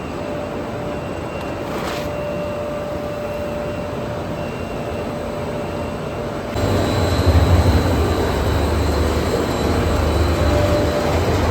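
Continuous carbonization furnace plant running: a steady machine hum and rumble from the rotating drums and their drives. About six and a half seconds in, it abruptly gets louder, with a heavy low rumble.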